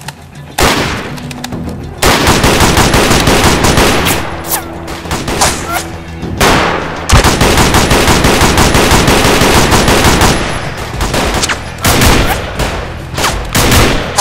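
Sustained automatic gunfire from several rifles, with rapid shots overlapping almost without pause. A few shots start about half a second in, and the firing turns into a continuous barrage from about two seconds in.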